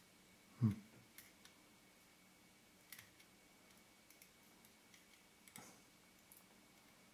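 Faint, scattered small clicks and ticks of repair tools working on the aperture mechanism of an AF Nikkor 50mm f/1.4D lens while its tiny spring is being put back. A short vocal sound comes a little under a second in.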